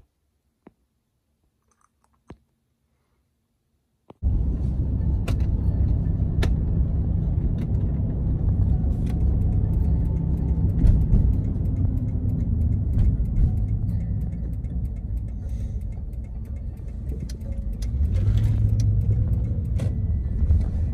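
Near silence with a few faint clicks, then, about four seconds in, the steady rumble of road noise inside a moving car starts abruptly.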